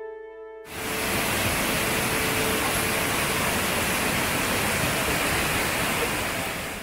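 Large waterfall formed by a spring gushing out of the rock: a loud, steady rush of falling water that cuts in suddenly about a second in, after a few notes of brass music.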